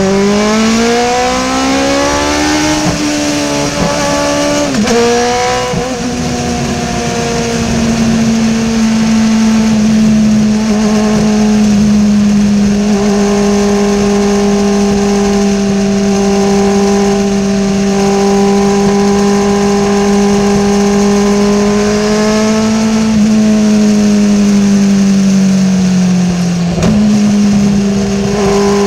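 Race car engine heard from an in-car camera. Its pitch rises as it accelerates over the first few seconds, drops with a shift about five seconds in, then holds a steady note for about twenty seconds, with a brief dip near the end.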